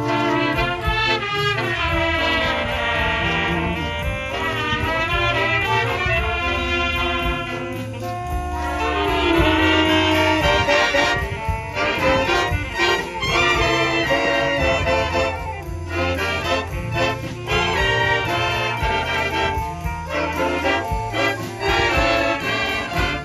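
A school jazz ensemble playing a tango, with trumpets, trombones and saxophones leading over the drum kit. Long held brass lines give way to short, clipped chords about halfway through.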